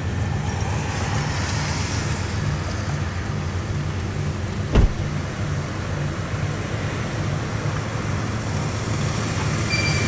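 Diesel-electric freight locomotives pulling a train away slowly, their engines giving a steady low rumble that pulses in even beats. A single sharp clank comes about five seconds in.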